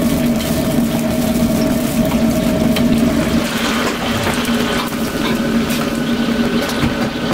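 Steady hum and rush of a commercial kitchen's gas range and extractor fan while oil heats for chili oil, with faint clicks and a little hiss from about the middle on.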